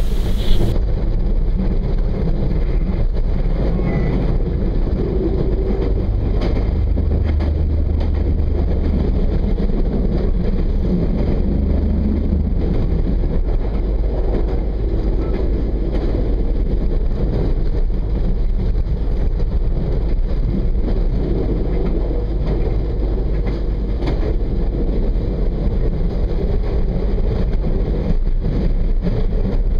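Regional passenger train heard from on board, running along the track: a steady low rumble of wheels and running gear, with a steady low hum for a few seconds in the middle.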